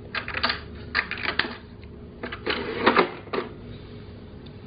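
Plastic clicks and rattles from a toy cash register's money drawer being handled as change is taken out and the drawer is pushed shut, a quick string of knocks over the first three seconds or so, then quiet handling.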